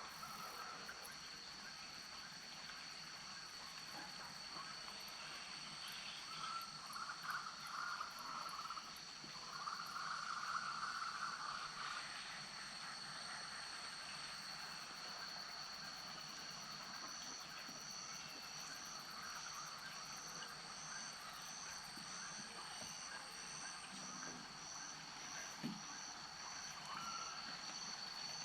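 Frogs calling in a chorus after rain: steady high-pitched trilling, with louder bursts of calls about a quarter of the way in and a pulsing high call joining about halfway through.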